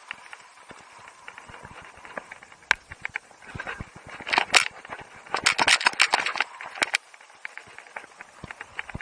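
Skis scraping and chattering over snow in irregular rasping bursts and clicks, loudest in two clusters a little after the middle.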